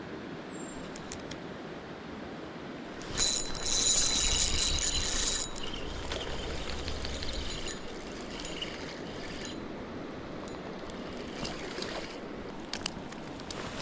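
River water running steadily. About three seconds in, a louder hiss with a steady high whine on top lasts about two seconds, then fades off over the next few seconds; a few faint clicks come near the end.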